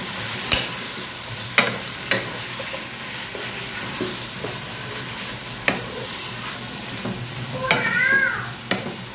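Beef and parboiled leafy greens sizzling in a non-stick wok while being stirred and tossed with a wooden spatula, which knocks sharply against the pan a few times.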